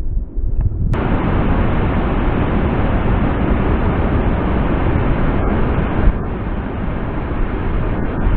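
Great Falls of the Passaic River: a large waterfall giving a steady rush of falling water. The sound changes suddenly about a second in, becoming louder and brighter.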